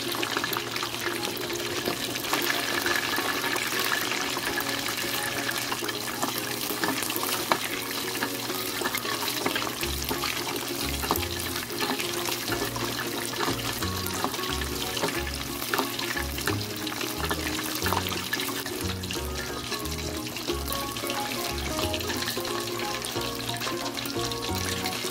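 Pork leg deep-frying in a pot of hot oil: steady, dense sizzling and crackling. Background music plays alongside, with a bass line coming in about ten seconds in.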